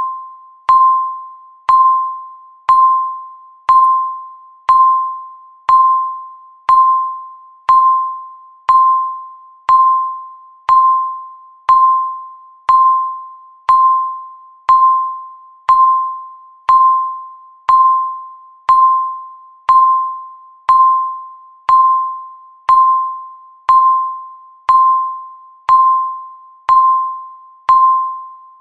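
Countdown timer beep: a single electronic tone of about 1 kHz, struck once a second with a sharp onset and quick fade, repeating evenly.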